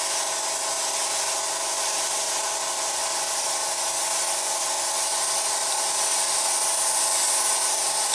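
Airbrush spraying paint: a steady hiss of air and paint, over the steady hum of its compressor running.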